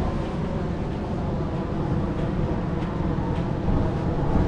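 Steady low rumble of wind buffeting the microphone over waves washing onto a sandy beach.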